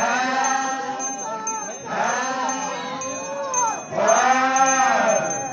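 A group of male dancers chanting in unison during a folk dance, in three long calls of about two seconds each that rise and fall in pitch.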